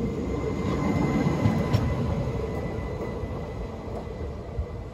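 French TER regional train moving slowly past at close range: a steady rumble of wheels on the rails with a faint high whine, easing off over the last second or two.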